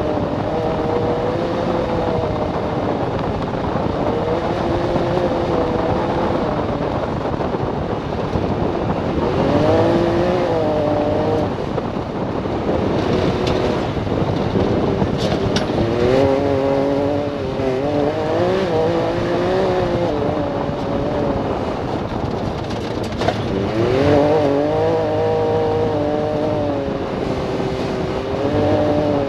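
Tuned Can-Am Maverick X3 DS side-by-side's turbocharged three-cylinder engine, heard from the cockpit through a Yoshimura exhaust with the catalytic converter deleted and a modified tri-pipe tip, while the vehicle drives. The engine note rises and falls several times with the throttle, over steady tyre and wind noise.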